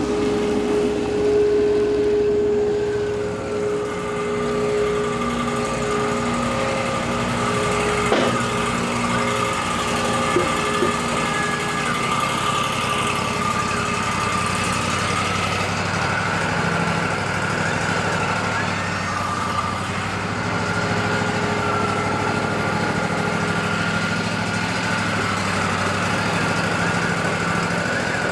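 Wood-Mizer LT40 band sawmill running steadily with a constant whine, its band blade sawing a cedar log into one-inch boards. Two short knocks come about a third of the way in.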